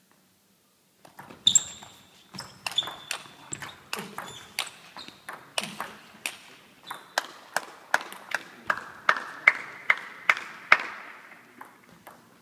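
Table tennis ball clicking back and forth off the bats and the table in a rally, echoing in a sports hall. The hits start about a second in, come roughly two or three a second, and die away near the end.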